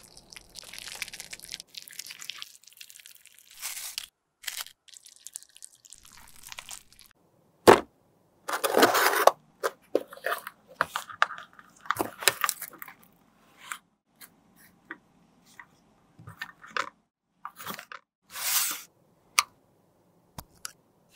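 Close-miked handling sounds of makeup repair: a metal blade scraping and crumbling soft orange makeup out of a plastic case, then a series of short crunching, crackling and tearing sounds with sharp clicks. The loudest is a single sharp click about eight seconds in, followed by a second of crackling.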